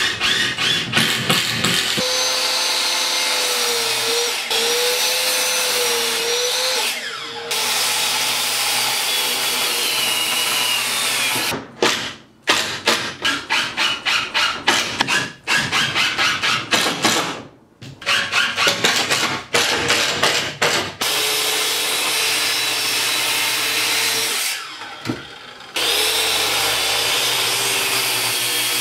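Power tools at work on timber: a cordless driver sinking screws in rapid rattling stretches, alternating with stretches of a steady motor whine that wavers in pitch. A mitre saw runs near the end.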